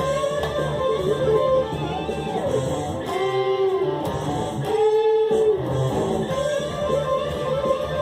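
Rock music led by electric guitar, with a bass line underneath and melody notes that bend up and down in pitch.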